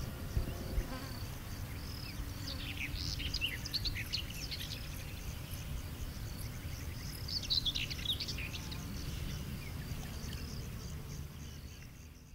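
Woodland ambience: small birds chirping in short quick clusters over a steady low rumble, with a faint high insect-like hum, fading out near the end.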